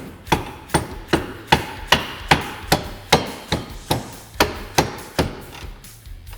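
Rubber mallet tapping a bolt through the fender guard's spacers into its mount. About fourteen even strikes, roughly two and a half a second, stopping a little over five seconds in.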